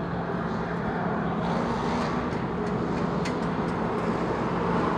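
Steady, distant engine rumble with a low hum, growing slightly louder, with a few faint ticks in the middle.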